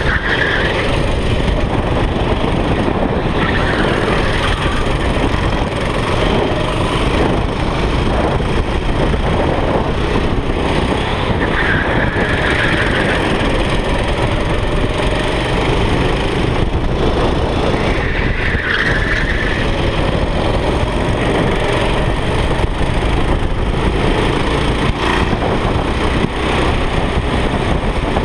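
Go-kart engine running hard, heard on board with wind buffeting the microphone, its pitch wavering up and down as the kart speeds along and through corners. A few short higher-pitched sounds rise above it now and then.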